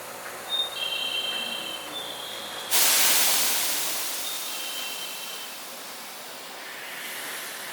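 A sudden loud hiss of compressed air venting from a JR West 223-series train's air system at the platform, starting about a third of the way in and slowly fading away.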